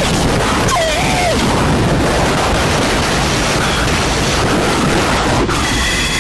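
Loud, harsh static-like noise over a deep rumble, as in a mock emergency-alert sequence. A short wavering tone dips and levels off about a second in.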